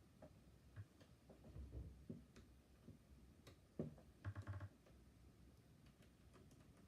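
Faint clicks and taps of a small screwdriver on screws and plastic laptop parts as screws are driven back into a laptop screen assembly, with a sharper tap and a quick run of ticks about four seconds in.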